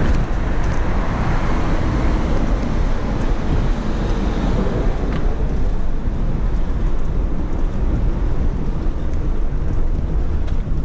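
Bicycle rolling over cobblestones: a steady rumble from the tyres and bike on the uneven stone, mixed with wind noise on the microphone, with a few faint clicks.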